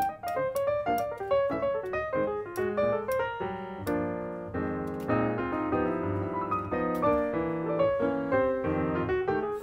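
Background piano music: a quick run of separate notes, giving way to fuller held chords about four seconds in.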